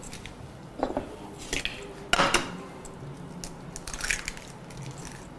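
Eggs being cracked and their shells broken open over a glass bowl: several sharp taps and cracks of shell, the loudest about two seconds in.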